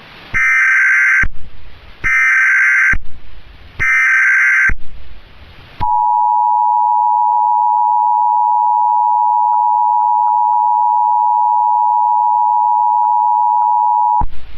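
Emergency Alert System alert tones, signalling the start of an emergency broadcast: three roughly one-second bursts of SAME header data, then the steady two-tone EAS attention signal held for about eight seconds before it cuts off suddenly.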